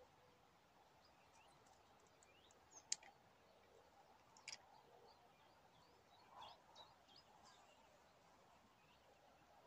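Faint outdoor birdsong: scattered short high chirps from small birds, with two brief, sharp, louder high notes about three and four and a half seconds in.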